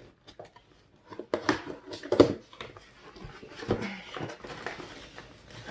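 A package being opened and handled by hand: irregular knocks, clicks and rustling of cardboard and packing, with one sharper knock a little over two seconds in.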